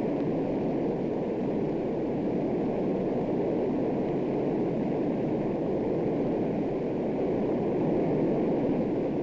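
Aircraft engines running, a steady, even rushing noise with no distinct tones.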